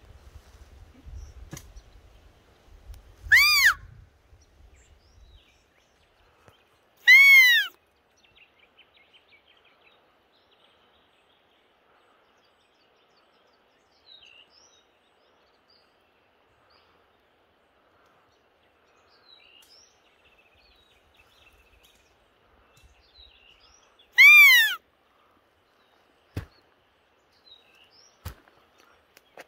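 A hunter's deer squeaker blown three times to call sambar deer: each squeak is a short, high call that rises and falls in pitch. The first two come a few seconds apart, and the third follows a long pause. Faint rustling of leaves and twigs lies between them.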